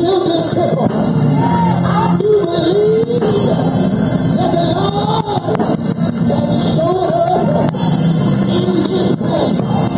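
Loud live gospel music with voices singing and shouting over it, as a church congregation praises.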